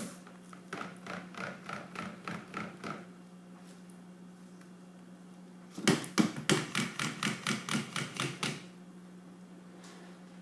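A utensil clicking against the side of a container in quick, rhythmic strokes as soap batter is hand-stirred: a lighter run of taps, then about a second's pause, then a louder, faster run of about six a second.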